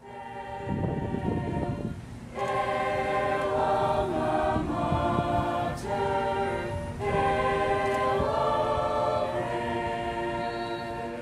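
High-school choir singing a slow passage of long held chords in three phrases, with short breaths between them about two and seven seconds in.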